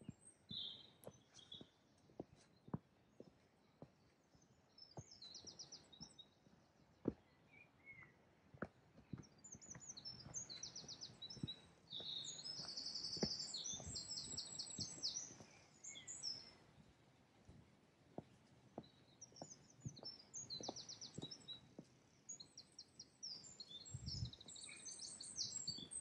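Small songbirds singing repeated high, fast-trilled phrases, fuller from about ten seconds in, over footsteps on a woodland path that tick along about twice a second.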